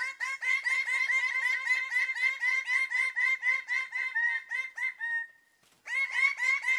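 Bird-of-paradise calling in a rapid run of repeated, identical notes, about four or five a second. The run breaks off about five seconds in and starts again near the end.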